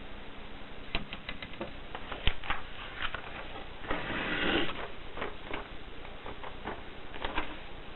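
Mercedes Selecta typewriter being typed on: irregular sharp key strikes, with a longer rasping mechanical sound about four seconds in.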